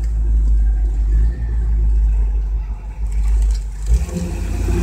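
1978 Chevy K-10 pickup's engine and road rumble heard from inside the cab during a low-speed turn. About four seconds in, the engine note comes up more clearly as the truck accelerates.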